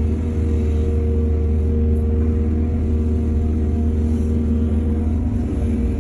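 Heavy diesel engine of earthmoving machinery running steadily, a low, even drone.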